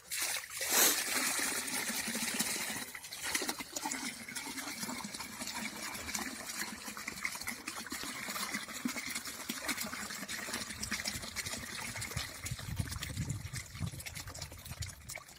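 Water pouring and trickling out of a tipped plastic bucket into shallow water as small fish are tipped out with it, loudest about a second in.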